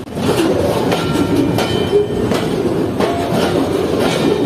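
Freight train rolling on the track: a steady rumble and clatter of wheels on the rails with irregular knocks, and a few faint high squealing tones about a second in.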